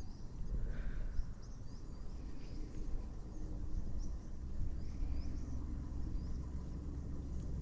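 Small birds chirping, many short high calls scattered throughout, over a low steady rumble.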